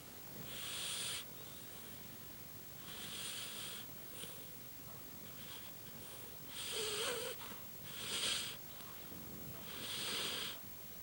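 Dog snoring in its sleep: five hissing, wheezy breaths, roughly every two to three seconds, one of them with a brief wavering whistle partway through.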